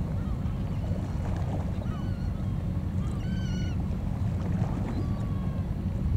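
Wind rumbling on the microphone, with birds calling over it: a few short chirps and one longer wavering call about three seconds in.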